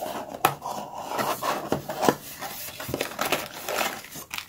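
Cardboard box being handled and opened: flaps and an inner cardboard tray scraping and rubbing against each other, with several sharp taps and clicks.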